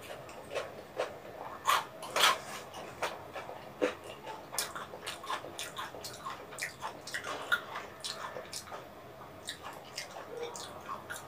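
Close-miked mouth sounds of someone chewing soft, chewy food: irregular wet smacks and clicks, with a few louder ones about two seconds in.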